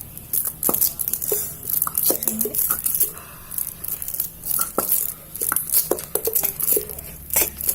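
Hands working sticky slime, giving a run of irregular wet clicks and crackles.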